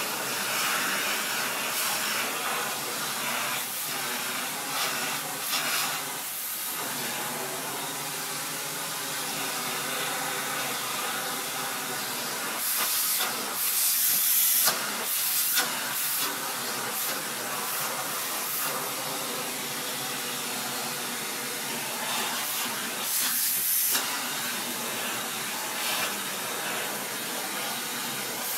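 Vacuum cleaner running with its nozzle drawn over a basset hound's coat: a steady, airy hiss over a motor hum. There are brief louder, sharper surges of hiss about halfway through and again later on.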